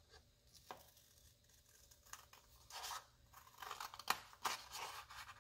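Scissors snipping through a folded sheet of scrapbook paper, a quiet series of short, irregular cuts as the blades work along a traced shape.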